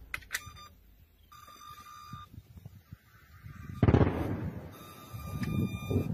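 Steady electronic buzzing tone of a shoulder-fired air-defence missile's seeker, sounding from about a second in and again from about five seconds in: the seeker has picked up the aerial target before launch. About four seconds in, a loud, sudden rush of rumbling noise breaks in over it.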